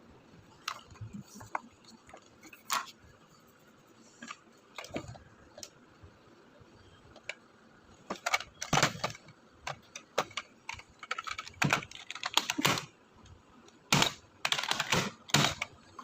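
Irregular sharp plastic clicks, taps and rattles from handling a Nerf toy blaster and its packaging. They are sparse at first and come in quick clusters through the second half.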